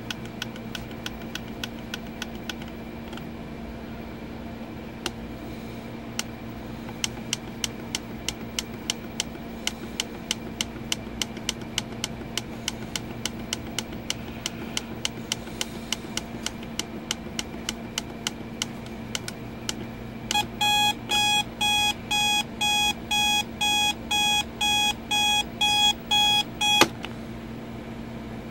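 Advance Model 3372 digital alarm clock's plastic buttons clicked over and over, a couple of clicks a second, as the time is stepped forward. About twenty seconds in, its alarm goes off as a pulsed electronic beep, about two beeps a second. After some six seconds it is cut off with a click.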